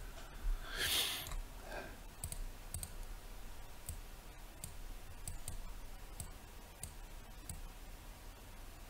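Computer mouse clicking, a dozen or so faint, scattered clicks while nodes are dragged and connected, with a short soft hiss about a second in.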